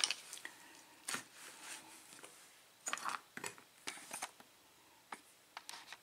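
Light metallic clicks and taps at irregular intervals as the small parts of a disassembled pin-tumbler padlock (pins, springs, plug) are handled with tools.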